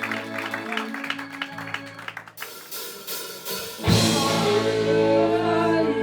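Live rock band: a sparse rhythmic passage over steady low notes thins out, then about four seconds in the full band comes in with a loud crash at the start of a new song and plays on.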